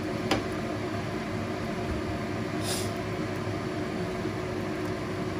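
Steady low frying noise and hum as an egg omelette with French beans and carrots cooks in a non-stick pan over a low gas flame, with a light click just after the start and a short, higher hiss about halfway.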